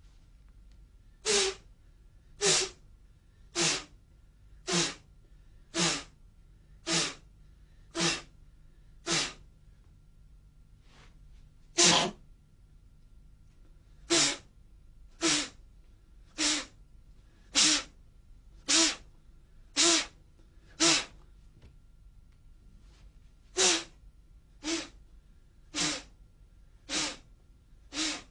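Sharp, forceful exhalations from a practitioner doing the Emei Pai Da Gong combat breathing method, each a short hissing blast with a grunt in it. They come about once a second in runs, with brief pauses between the runs.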